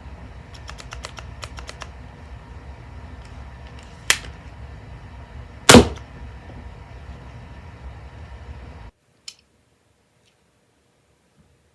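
Plastic Nerf blaster being handled and reloaded: a quick run of small clicks, then two sharp plastic clacks about a second and a half apart, the second the loudest.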